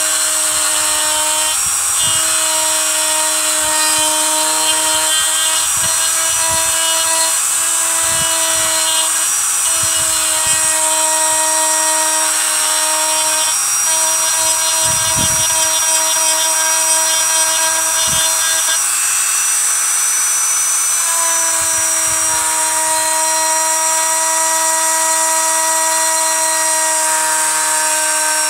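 Dremel rotary tool running at a steady high-pitched whine, its bit grinding and engraving into human skull bone with a hiss.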